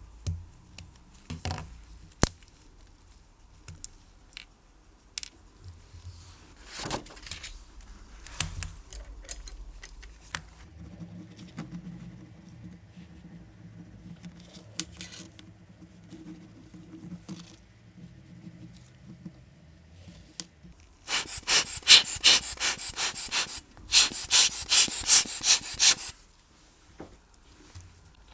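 Small clicks and handling noises of watch-repair work, then a steady low hum for about ten seconds, then about five seconds of loud, rapid rasping strokes near the end.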